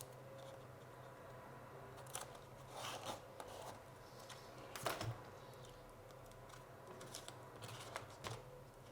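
Faint, scattered clicks and rustles of tape being handled and pressed onto a foam wing.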